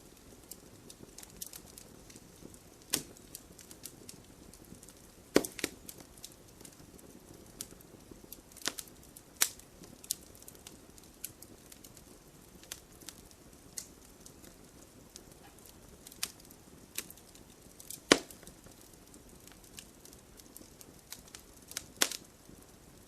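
Wood fire crackling, with a low steady hiss and frequent sharp pops and snaps; the loudest pops come about five seconds in and again near eighteen seconds.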